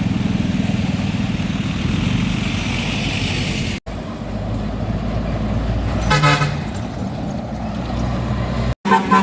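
Vehicle engine and road rumble, with a vehicle horn honking once for about half a second around six seconds in, and another toot starting just at the end. The sound drops out briefly twice.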